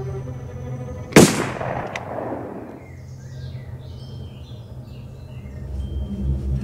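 A single rifle shot about a second in, sharp and loud, with a reverberating tail that dies away over about a second and a half. Under it a low steady drone, and low pulsing music comes in near the end.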